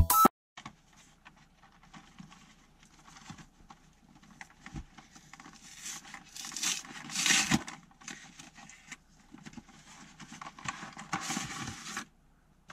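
Cardboard and plastic packaging of a Pokémon card starter box being worked open by hand: rustling, scraping and tearing. It comes in uneven spells and is loudest about six to seven seconds in and again near the end.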